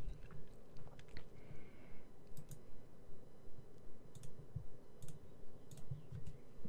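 Computer mouse button clicking several times, mostly in quick pairs, over a faint low background hum.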